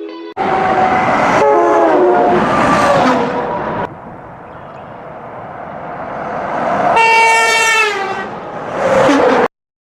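A loud multi-tone vehicle horn blaring in long blasts, its tones bending in pitch, over a steady rumble. There is a long blast, then a quieter stretch of rumble, then a second blast and a short third. The sound cuts off abruptly near the end.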